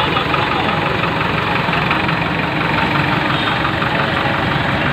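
Diesel tractor engine idling steadily, most likely the nearby Farmtrac 6060.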